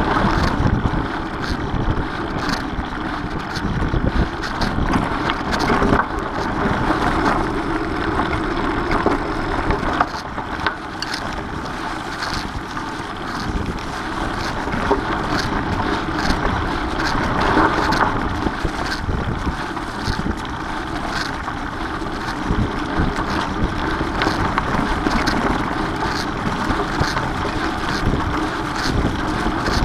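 Mountain bike rolling over a leaf-covered dirt singletrack, with the tyres' rolling noise and frequent short clicks and rattles from the bike, under wind buffeting the camera's microphone.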